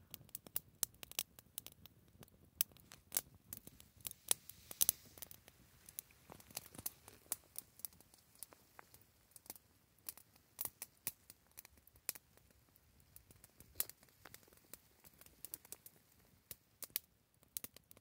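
Small twig campfire crackling: quiet, irregular sharp snaps and pops, thickest over the first several seconds and thinning out later.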